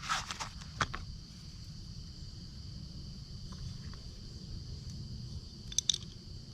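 Steady high-pitched chorus of insects in the woods, with a few sharp clicks and knocks in the first second and again near the end.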